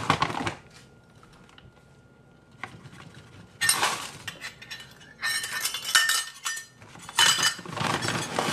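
Metal kitchen utensils clinking and scraping against dishes while TVP is measured out. There is a sharp clink at the start, a quiet stretch of about three seconds, then three bursts of clattering.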